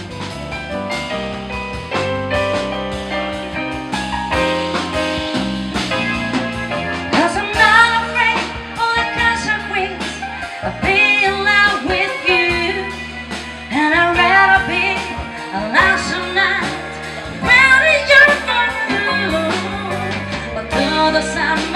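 Live band playing on electric keyboard, electric bass and drums, with a woman singing into a microphone from about seven seconds in, her voice wavering in pitch over the accompaniment.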